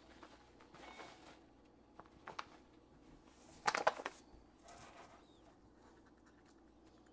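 Paper flour bag rustling and crinkling as flour is poured from it into a glass measuring cup: a few soft rustles, the loudest about four seconds in.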